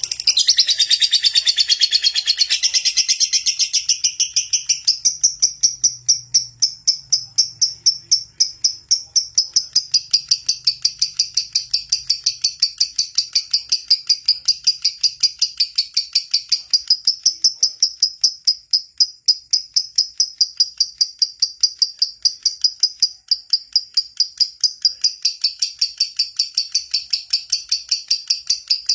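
Lovebird singing in a long, unbroken run of rapid, high, sharp chirps, several a second without a pause: the continuous 'gacor' song played as a lure to set other lovebirds singing.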